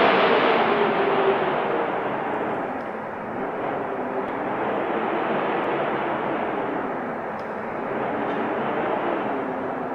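Wind blowing in a steady rush that swells and eases in slow gusts. It is loudest at the start and dips about three seconds in and again near the eight-second mark.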